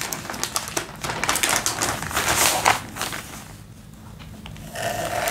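Plastic courier mailer crinkling and rustling as it is slit open with a utility knife, dying down for about a second a little past the middle before starting again.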